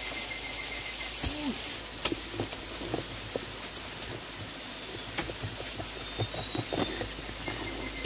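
Loose soil and stones pulled away by hand from a hole in an earth bank: scattered short knocks, clicks and rustles over a steady background hiss.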